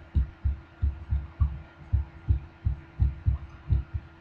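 Dry-erase marker writing on a whiteboard: dull, low knocks about three a second as the pen strokes hit the board, over a faint steady hum.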